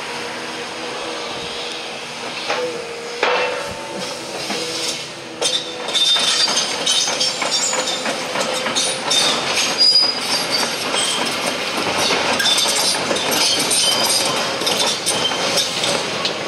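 Tracked demolition excavator working: a steady engine hum, then from about five seconds in a continuous clatter of high metallic squeals, clinks and knocks from the machine's steel tracks and grab.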